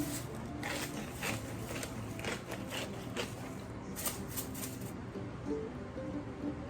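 Background music, with a run of short wet clicks and smacks of someone chewing and eating during the first five seconds.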